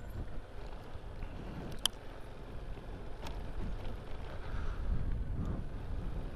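Yamaha NMAX motor scooter riding along a rough, patched road: a steady low engine and road rumble, with a sharp click about two seconds in and a fainter one about a second later.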